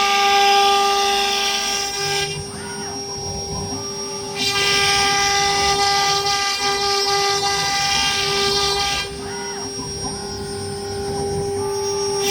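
AKM2040 CNC wood router's spindle running with a steady high whine, overlaid in stretches by a bright hiss of cutting. The hiss drops out twice, about two seconds in and about nine seconds in, for roughly two seconds each time, leaving only the whine.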